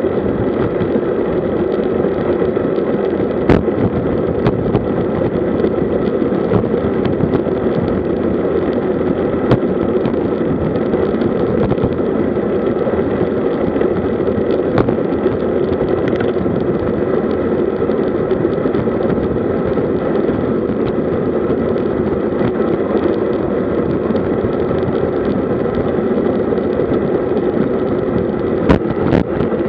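Steady rush of wind and road noise on a road bike's camera at about 50 km/h, with a few brief sharp clicks from bumps in the road.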